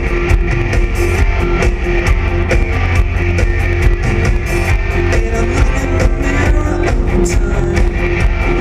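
Live rock band playing loudly, with electric guitars and a drum kit over heavy bass, heard from a balcony through a camera microphone that gives a harsh, poor-quality sound.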